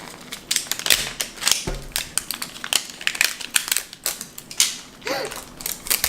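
Plastic wrapping of a LOL Surprise ball crinkling and crackling as it is handled and peeled open, a quick, irregular run of crackles.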